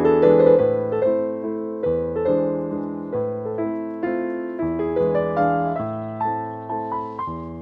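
Background piano music: an unhurried melody of struck notes, about two a second, climbing higher near the end.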